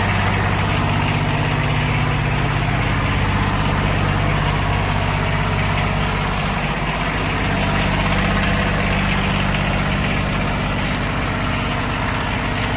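Engine idling steadily on a 1995 Ford F450 Super Duty pressure washer truck.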